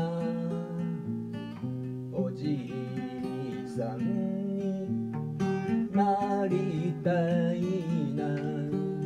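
Steel-string acoustic guitar with a capo, strummed in chords that change about once a second, as an instrumental passage without sung words.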